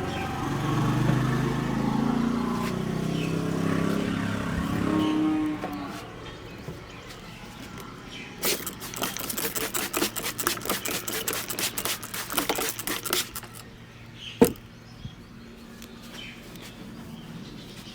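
A motor vehicle's engine passes close by for the first few seconds, its pitch rising and falling. It is followed by about five seconds of fast, rapid tapping strikes, typical of hand-tapping massage. A single sharp slap or crack comes near the end.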